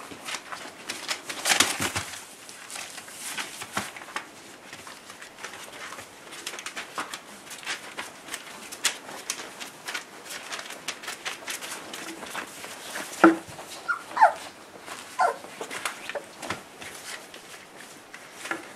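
Whippet puppies play-fighting on a duvet: rustling and scuffling of paws on fabric, with a few short, high yips about two-thirds of the way through.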